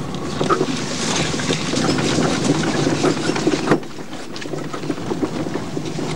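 Fiat 126p (maluch) driving over a rutted dirt road, heard from inside: its small air-cooled two-cylinder engine runs under steady road noise with constant rattling and knocking. There is a sharp knock about three and a half seconds in, after which it goes a little quieter.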